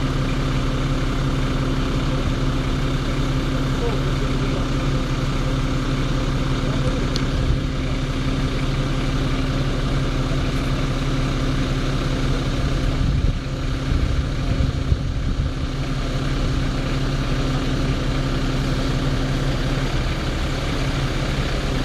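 Fire truck's diesel engine running steadily to drive the hydraulics of a PMT-25D aerial platform while its boom is raised, with a steady hum. A few light knocks come a little past the middle.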